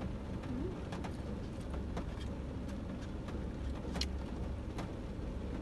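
Eating sounds: plastic spoons scraping and tapping in paper dessert boxes and a paper wrapper being handled, heard as scattered small clicks with a louder one about four seconds in. Under them runs the steady low rumble of a car interior.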